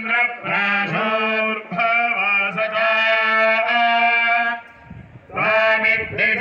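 A man chanting a mantra in long, held melodic phrases. The chant breaks off for a moment about five seconds in, then starts again.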